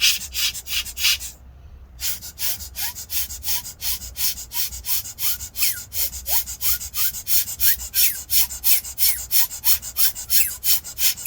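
Laptop cooling fan being spun, giving quick rhythmic scraping strokes about four a second with short rising squeaks between them, after a brief pause near the start. The fan bearing is still sticking and squeaking, though less often, even after being flooded with WD-40 silicone grease.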